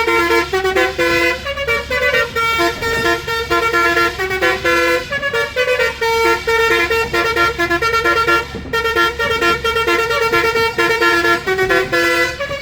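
Multi-tone telolet horn playing a melody, short horn notes switching in quick succession, with a brief break about nine seconds in.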